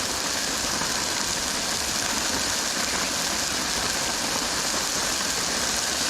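Steady hiss of rain on a tarp shelter mixed with the even rush of a canister gas camp stove burner.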